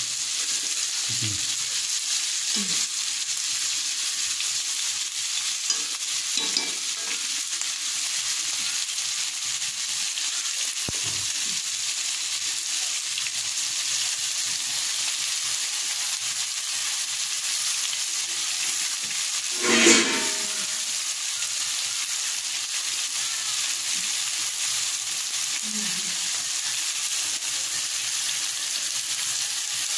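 Turkey meat and onions sizzling steadily in hot oil in an iron karahi, stirred with a spatula. A brief, louder noise from the pan comes about two-thirds of the way through.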